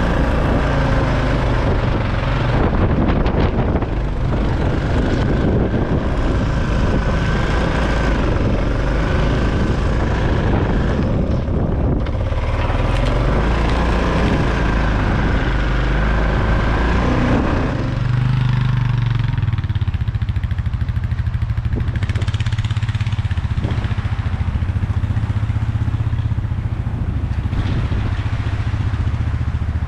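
Four-wheeler (ATV) engine running while being driven. About 18 seconds in, the higher noise drops away and the engine carries on with a lower, steadier sound.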